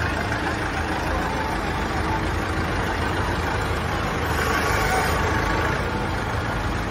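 Engines of a truck-mounted crane and a forklift running steadily at work: a continuous low rumble.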